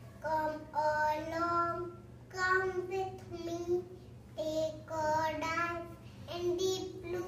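A young girl's voice reciting a rhyming children's poem in a sing-song voice, in four short phrases with brief pauses between them, over a faint steady low hum.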